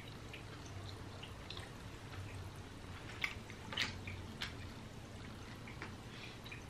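Quiet eating sounds: faint chewing with a few light clicks and crunches as fingers pick at nacho chips, over a low steady hum.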